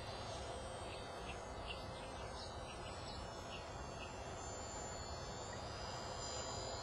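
Outdoor field ambience: a steady low background noise with scattered short, high chirps, and a faint thin high whine that comes in about two-thirds of the way through.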